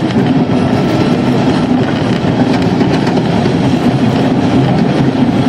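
Steady running noise of the Bolan Mail passenger train in motion, heard from inside a coach: wheels rolling on the rails with the carriage's rumble and rattle.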